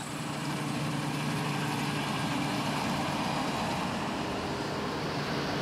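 Combine harvester running steadily while threshing lentils: an even engine drone with the rush of the threshing works over it.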